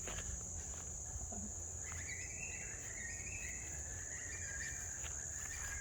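Steady high-pitched chorus of crickets, joined about two seconds in by a wavering high tone that lasts several seconds.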